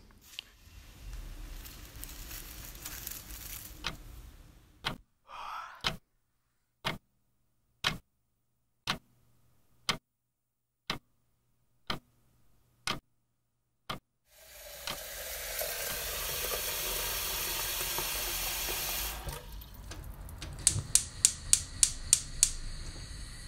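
A clock ticking about once a second in otherwise dead silence, about ten ticks. Then water running from a tap for about five seconds, and near the end a quick run of about eight sharp clicks.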